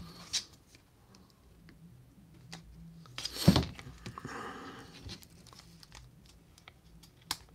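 Faint clicks and rustles of fingers handling a plastic action figure while threading string through its waist joint, with one louder sharp click about three and a half seconds in.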